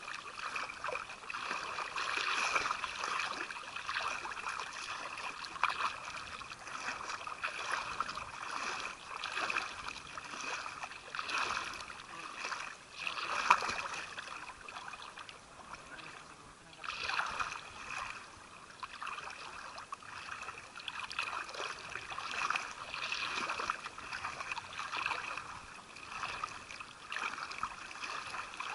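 Shallow seawater sloshing and lapping against a camera held at the water's surface: an uneven wash of water noise with many small splashes.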